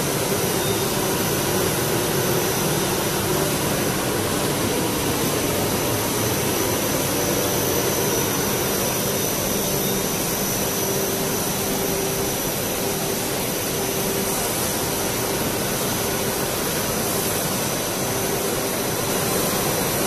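Double-head blown-film extrusion machine running: a steady rush of air and motor hum from its cooling blowers and extruder drive motors, with a faint high whine held throughout.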